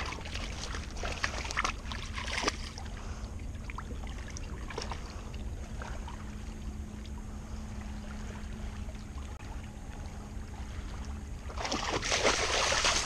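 A dog wading among stones at the water's edge, with a low wind rumble on the microphone and scattered light clicks of paws on rocks. About a second before the end comes a loud burst of splashing as the dog steps through the shallow water.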